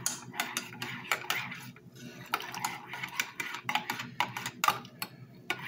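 A metal spoon stirring in a ceramic mug, clinking irregularly against the sides as cocoa mix is blended into coffee.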